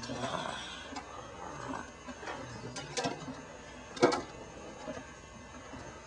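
Baby snoring softly in its sleep during the first couple of seconds, with a few sharp clicks, the loudest about four seconds in.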